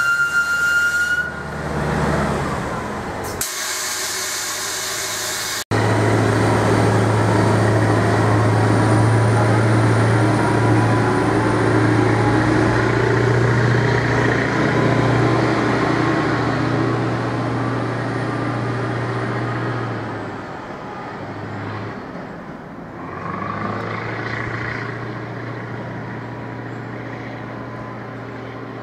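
Diesel engine of a Colas Rail Plasser & Theurer 09-4X4/4S track tamper running steadily as the machine moves away along the line, with a thin high whine above it. The sound drops off abruptly a few seconds in, then returns and eases off after about twenty seconds.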